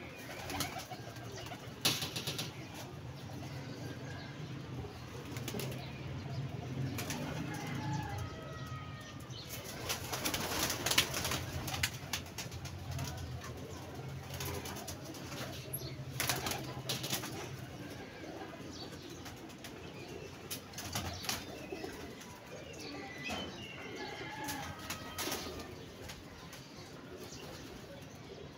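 Domestic pigeons flapping their wings inside a wire-mesh loft in several flurries, the longest about ten seconds in, with low cooing underneath.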